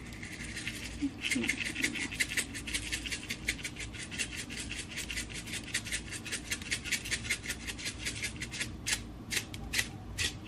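Plastic spice shaker of dried chopped onions being shaken over a frying pan: a fast, even rattle of dry flakes, several shakes a second, starting about a second in and going on almost to the end.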